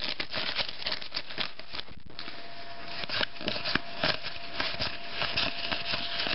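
Foil trading-card pack wrapper crinkling in the hands as it is opened, then a stack of cards rustling and clicking as they are flipped through one by one.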